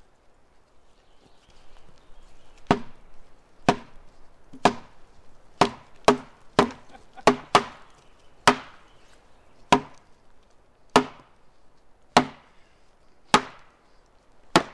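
Wood being chopped by hand into a log: about fourteen sharp blows, roughly one a second, with a quicker run of blows in the middle.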